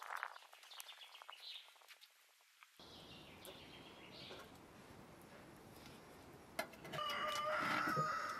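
A rooster crows once near the end, a long call held at one pitch. Fainter short bird calls come earlier.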